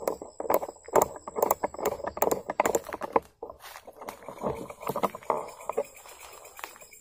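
Footsteps pushing through undergrowth: leaves and brush rustle and crackle in an irregular run of bursts, with a brief pause about halfway through.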